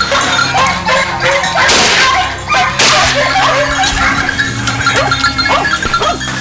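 A pack of hunting hounds barking and yelping in a rapid, overlapping chorus, dogs giving tongue in pursuit of a wild boar. Two short rustling crashes come through about two and three seconds in.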